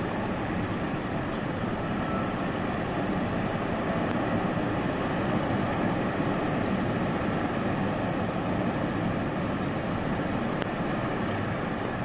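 The steady rush of water pouring over Niagara Falls, an even, unbroken noise that holds at one level.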